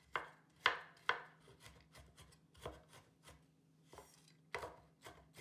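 Chinese cleaver finely chopping peanuts on a wooden cutting board: uneven knocks of the blade on the wood, the strongest in the first second or so, then lighter, quicker taps.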